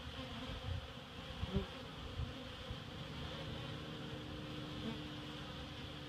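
Honeybees buzzing steadily around the entrance of a wooden hive, with a brief low thump about one and a half seconds in.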